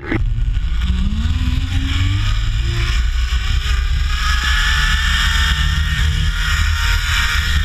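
Zipline trolley's pulley wheels running along the steel cable, giving a continuous whine that rises in pitch over the first few seconds and then holds steady. Under it is a low rumble of wind on the microphone.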